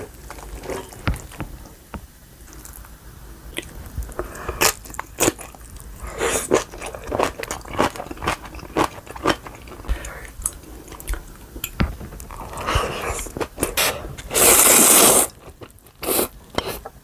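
Close-up eating sounds: crunchy bites and chewing of napa cabbage kimchi, with short clicks and mouth noises. One loud rushing burst, under a second long, comes about three-quarters of the way through.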